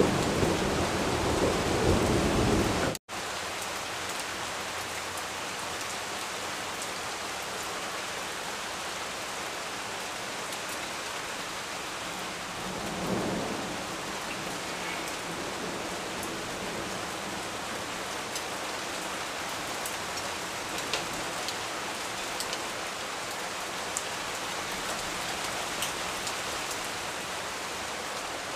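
Steady rain falling on leaves and surfaces, with thunder rumbling under it for the first three seconds until it cuts off abruptly. After that the rain hiss runs on evenly, with a brief low rumble near the middle and scattered drip ticks.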